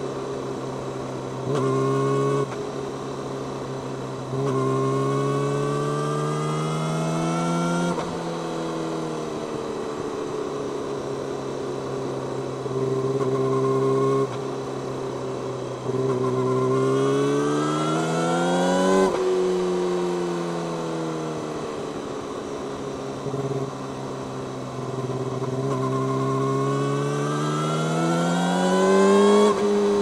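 Yamaha YZF-R6's inline-four engine through an Akrapovič megaphone slip-on exhaust, accelerating. It rises in pitch in three long pulls, each cut off suddenly, with shorter on-and-off throttle steps between them.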